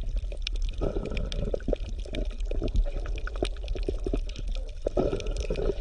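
Water bubbling: a dense stream of small pops and trickles over a steady low rumble, like an aquarium or underwater ambience.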